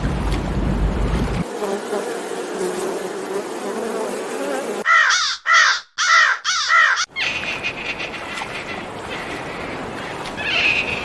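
An animal calling four times in quick succession, each call rising and falling in pitch, over a steady background hiss; a steady high buzz follows.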